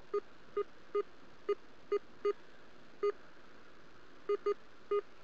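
Metal detector beeping: about ten short, identical low-pitched tones at uneven intervals as its search coil is swept back and forth, signalling a buried metal target beneath the coil.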